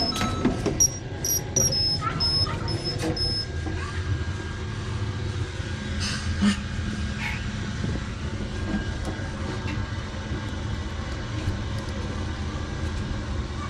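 Passenger lift in use: a quick run of about eight short, high beeps in the first few seconds, then the steady low hum and rumble of the lift car travelling.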